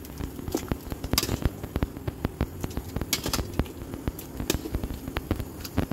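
Water boiling in a stainless steel pot used to blanch duck pieces, with many irregular pops and crackles from the bubbles.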